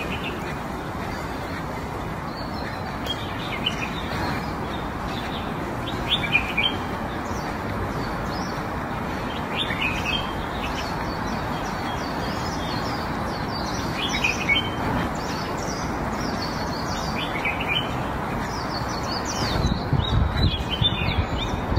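Small birds chirping in short, scattered calls over a steady outdoor background hiss, with a low rumble coming in near the end.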